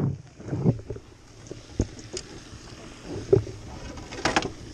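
Handling noise from a spinning rod and reel worked right next to a body-worn camera's microphone while a crappie is reeled in: scattered knocks and rubbing, the loudest knock about three seconds in, and a brief rustle near the end.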